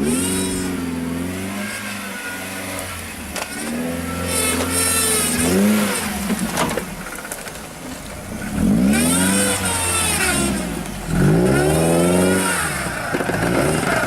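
Off-road 4x4's engine revved hard again and again, its pitch climbing and dropping in several surges, with a few sharp knocks in the middle.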